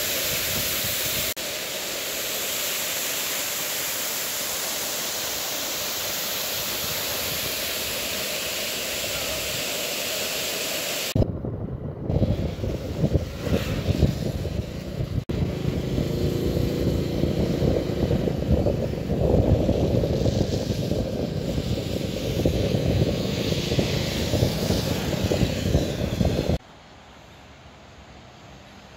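A waterfall's steady rush of falling water for about the first eleven seconds. Then an abrupt cut to louder, gusty wind buffeting and running noise from a moving vehicle, which cuts off suddenly near the end to a much quieter steady hiss.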